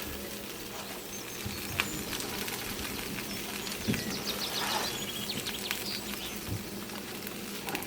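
Tortilla sandwiches toasting in a frying pan over low heat: a quiet, steady sizzle with a few sharp crackles.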